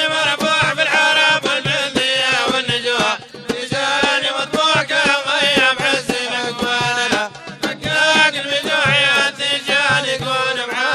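Instrumental break in a Maghrebi madih (Sufi praise song): a melodic instrument plays an ornamented line with gliding notes over regular hand-drum beats. The music dips briefly about three seconds in and again around seven seconds.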